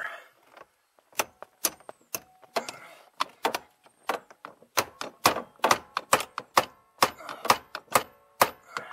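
Repeated hammer blows on a 1996 Ford Mustang's steering shaft under the dash, about twenty sharp strikes at two to three a second, each with a short ring, driving the stuck shaft along.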